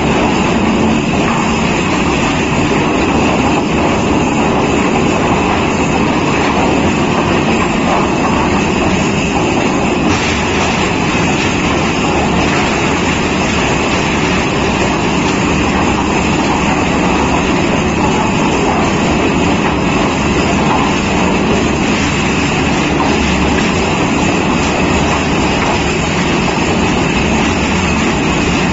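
Roller log debarker running loaded with logs: toothed rotors in the trough turn and tumble the logs to strip their bark. A steady, loud mechanical noise that does not let up.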